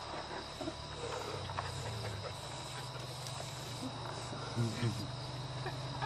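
Crickets trilling steadily and faintly, over a low steady hum.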